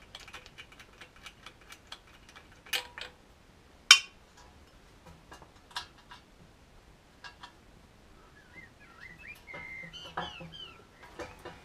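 Scattered light clicks and knocks of hands and a tool working at a Seagull outboard's spark plug, with two sharp clicks about three and four seconds in. Near the end a bird chirps several times.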